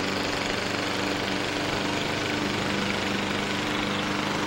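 A small engine running steadily: an unchanging drone with a low hum under it.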